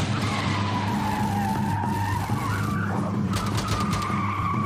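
Produced intro sound effect: a long whining tone that sinks and then slowly rises over a steady low hum, heard by a tagger as a vehicle skidding.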